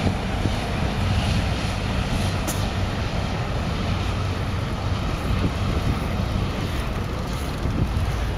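Motor yacht's engines running with a steady low drone as the boat cruises past.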